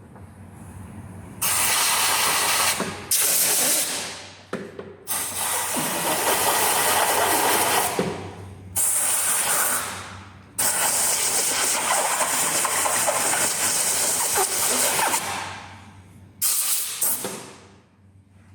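Compressed-air blow gun hissing in about six blasts of varying length, each starting suddenly, the longest lasting about five seconds, blowing oil and debris off the top of the rocker cover.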